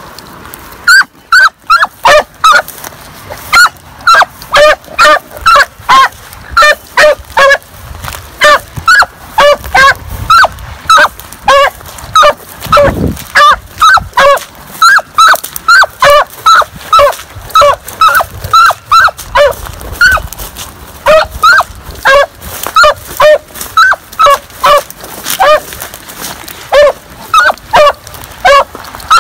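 Hunting hound baying over and over, about two loud barks a second with a brief lull about two-thirds of the way through: a dog giving voice while running a rabbit's trail.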